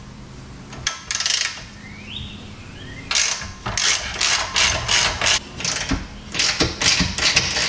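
Socket ratchet with a 17 mm socket loosening a nut on a rear suspension arm, its pawl clicking in quick runs of strokes: a short run about a second in, then repeated runs of several clicks a second from about three seconds in.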